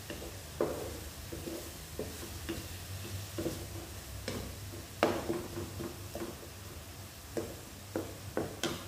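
Wooden spatula scraping and knocking against a nonstick wok as chopped onions and curry leaves are stirred in hot oil, at an irregular pace with the loudest knock about five seconds in, over a faint sizzle of the frying onions.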